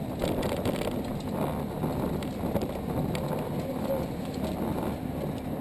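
Kids' go-kart rolling over pavement: a steady rumbling rattle with scattered clicks, picked up by a camera mounted on the kart's front.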